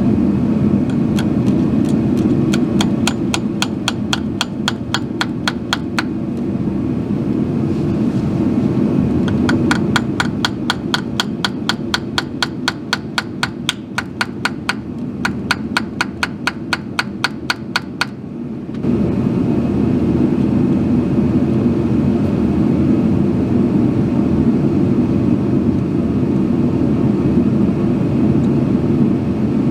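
Electric drill running steadily, drilling out a broken transmission pan bolt with a left-hand drill bit. A regular ticking, about three a second, rides over the drill for the first two-thirds and stops abruptly.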